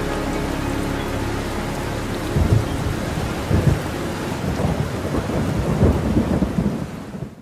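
Recorded rain and thunder: steady rain with low rolling thunder rumbles swelling several times from about two seconds in, cutting off abruptly at the end.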